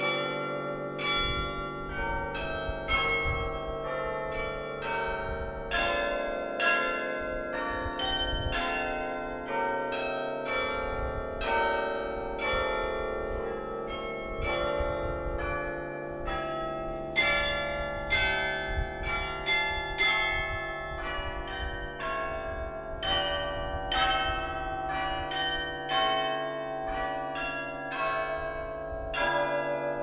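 Carillon bells played by a carillonneur: a tune of struck bells, notes and chords coming about one or two a second, each ringing on under the next.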